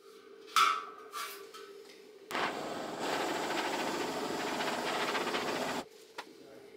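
Handheld gas torch hissing steadily for about three and a half seconds, then cutting off suddenly. Before it, a sharp knock with a brief ringing.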